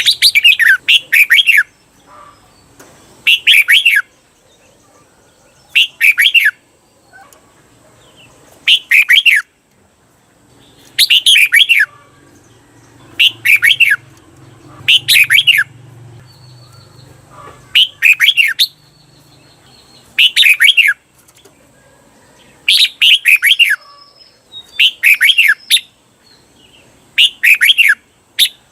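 Red-whiskered bulbul singing loud, short phrases of quick falling whistled notes, repeated every one to two seconds, several given twice back to back: the doubled 'berl' song that bulbul keepers train their birds to copy.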